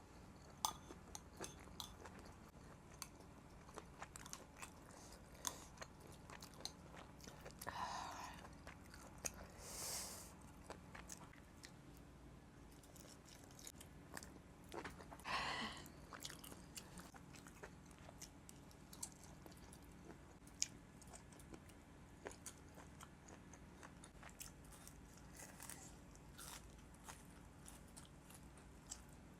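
A person chewing and biting boiled octopus close to the microphone, with many small wet mouth clicks throughout. A few longer, louder mouth sounds come about 8, 10 and 15 seconds in.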